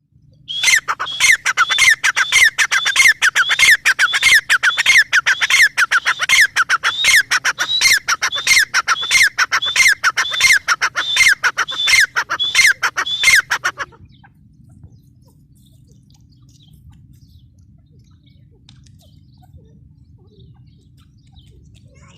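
Gray francolin (teetar) calling: a fast, loud run of harsh, sharply falling notes, several a second, which stops suddenly about 14 seconds in. A faint low hum is left after it.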